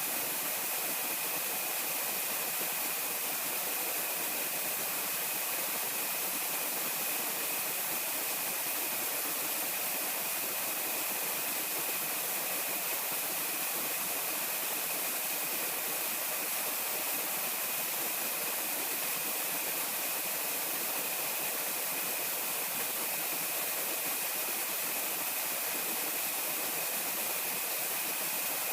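Steady rushing of flowing water, even and unchanging, with a thin constant high-pitched tone over it.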